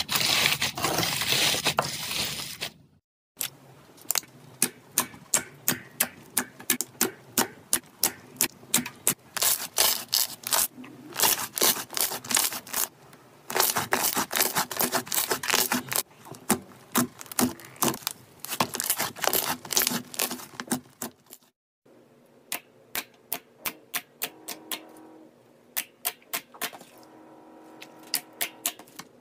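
Hands squeezing and kneading slime. First comes a dense crackling from crunchy green foam-bead slime, then long runs of sharp wet clicks and pops, several a second, from a white slime and a glossy black slime.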